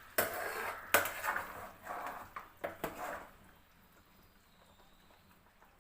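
A metal spoon or ladle clanking and scraping against a cooking pot of boiling chicken gravy: several sharp knocks in the first three seconds, the loudest about a second in, then it goes quiet.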